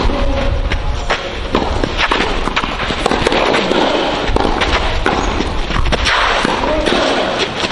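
Tennis ball struck back and forth with rackets in a clay-court rally: several sharp pops, roughly a second apart, over a steady low rumble.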